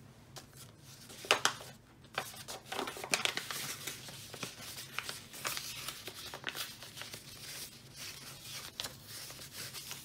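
Wrapping paper rustling and crinkling as hands fold it over a gift box, in irregular crisp rustles and crackles; the sharpest crackle comes about a second in.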